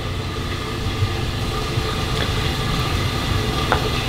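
Steady low mechanical hum, with a couple of light knife taps on a plastic cutting board, about two and three and a half seconds in.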